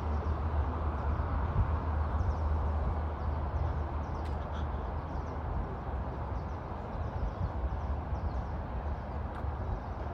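Steady outdoor background noise: a constant low rumble with a hiss spread through the middle range. Faint small chirps sit high above it.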